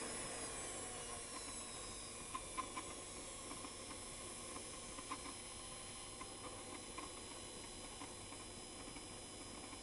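Shop vac used as a forge blower, running steadily with a rushing hiss; its whine falls slightly in pitch in the first second or so. A few short sharp crackles come from the wood fire.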